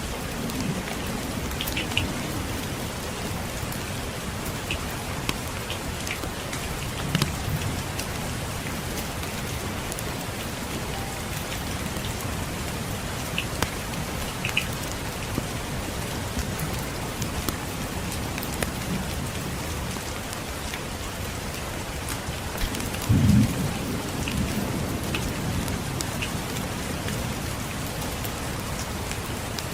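Steady rain falling, with a short, low rumble of distant thunder about two-thirds of the way through and a few scattered sharp ticks.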